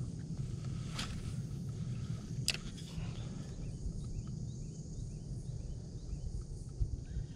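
Spinning reel wound slowly on a lure retrieve, a low steady whir, with two sharp clicks about a second and two and a half seconds in. Faint short chirping starts about halfway through.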